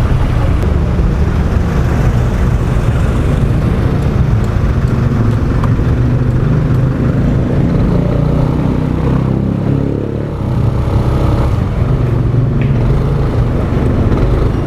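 Riding noise on a Yamaha Aerox 155 scooter: heavy wind rumble on the microphone over the engine running at speed. The level dips briefly about ten seconds in as the engine eases off, then picks up again.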